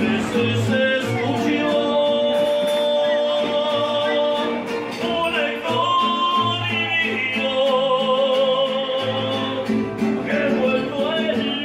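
Mariachi group playing live: a man singing long, held notes over strummed guitar and the deep plucked bass of a guitarrón.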